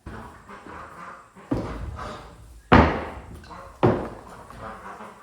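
Three loud knocks on the wooden brooder frame, about a second apart, each dying away quickly, with quieter handling and scraping of wood between them.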